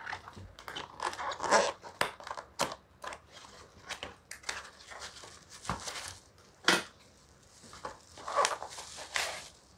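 Cardboard packaging being handled and opened: the box's end flap is pried and pulled open, with irregular rustling, scraping and sharp clicks; the sharpest click comes a little under seven seconds in. Near the end, crinkling as a bubble-wrapped torch is slid out of the box.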